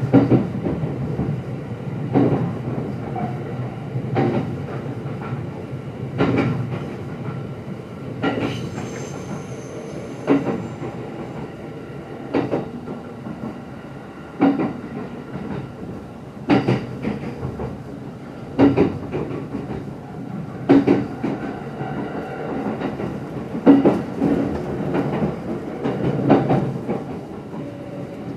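JR E231-series commuter train running at steady speed, heard from inside the car: rolling noise with wheels clicking over rail joints about every two seconds. A brief high squeal comes about nine seconds in.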